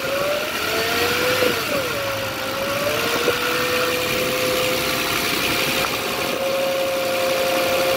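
Hyundai Genesis Coupe engine running under light gas blips, with a whine from the alternator whose pitch rises and falls with the revs over the first three seconds, then holds steady. The owner puts the whine down to bad alternator bearings or pulley.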